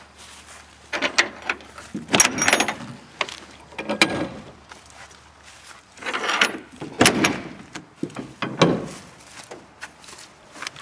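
Cargo trailer door's lever latch being worked by hand and the door moved: a series of metal clicks, clunks and rattles, one every second or two.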